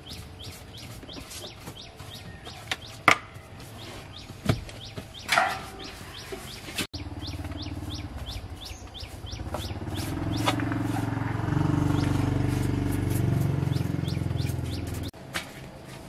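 A bird chirping over and over, about three short falling chirps a second, with a few sharp knocks. From about seven seconds in, a low rumble swells for several seconds and then stops suddenly.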